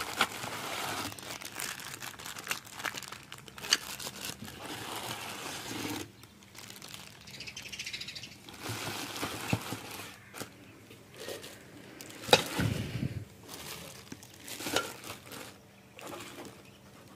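A clear plastic bag crinkling and a cardboard carton rustling as a wrapped appliance part is handled inside the opened box. Scattered knocks come through the rustling, the sharpest about twelve seconds in.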